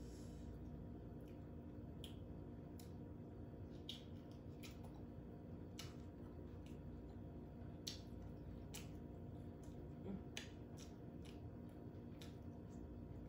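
Faint wet clicks, smacks and squishes, irregular and scattered, from eating a seafood boil with the hands: shellfish being pulled apart and chewed, over a steady low hum.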